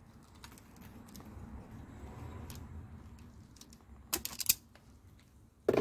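Small clicks and rustles of a car wiring harness and its plastic connectors and crimps being handled, with a louder cluster of clicks about four seconds in and another near the end. A low rumble swells and fades around the middle.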